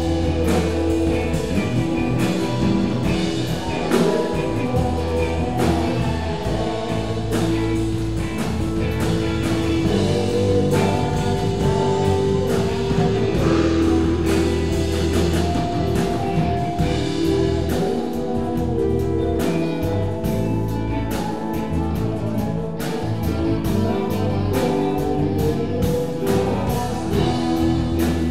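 A live rock band jamming: two electric guitars, electric bass, keyboard and drum kit playing together, loud and steady, in an improvised groove.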